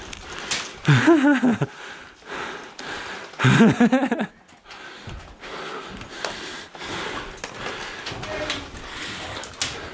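A man's voice in two short bursts of laughing or exclaiming, about a second in and again near four seconds, followed by faint scattered knocks.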